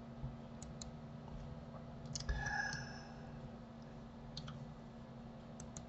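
A few quiet, sharp computer mouse clicks scattered over a steady low hum, with a brief faint tonal sound just after two seconds.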